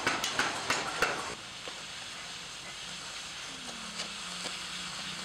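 Oxy-fuel cutting torch hissing as it cuts through a steel blank, with sharp crackles in the first second or so, then a steady hiss. A faint low hum joins about three and a half seconds in.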